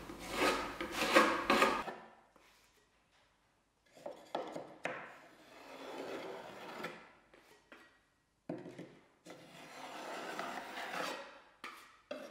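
Metal filler knife scraping and spreading wood filler along the wooden edge of an old desk. There are quick repeated strokes for about two seconds, then a pause, then longer scraping passes with short breaks.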